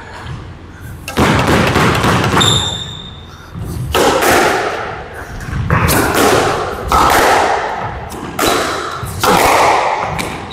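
Squash rally: about six hard hits of the ball off racket and walls, each echoing in the enclosed court, with a short high court-shoe squeak about two and a half seconds in.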